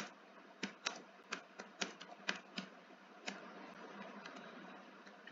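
Typing on a computer keyboard: about eight irregular key clicks, which stop a little over three seconds in, leaving a faint steady hiss.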